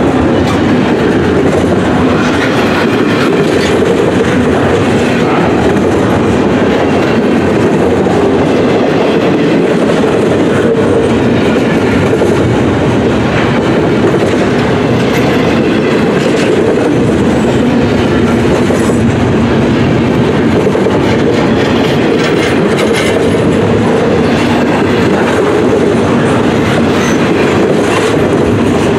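Double-stack intermodal freight train's loaded container well cars rolling past close by: a steady, loud rolling rumble of steel wheels on rail, with faint scattered clicks.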